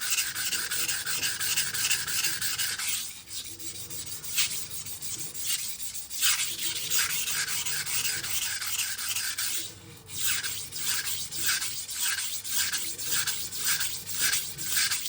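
Steel knife blade stroked back and forth across a coarse Cheefarcut 400-grit sharpening stone, a rhythmic rasping scrape at about two to three strokes a second, with brief pauses about three and ten seconds in. The strokes grind steel off the second side of the edge to raise a burr.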